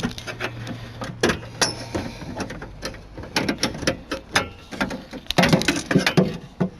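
Irregular clicks and light knocks as the latch rods and parts inside a Mazda MX-5 NB car door are moved and handled. They come in bunches, busiest about halfway through and again near the end.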